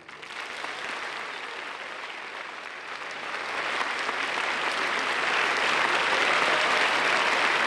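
Audience applause that starts suddenly and grows louder through the second half, loudest near the end.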